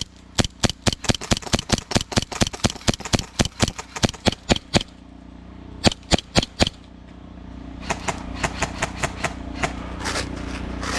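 Airsoft guns firing: a quick run of sharp shots at about five a second for nearly five seconds, three more about six seconds in, then another, quieter string of shots from about eight seconds in.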